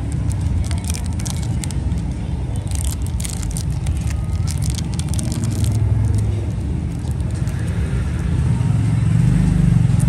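Steady low rumble of road traffic, with scattered faint clicks and scrapes in the middle.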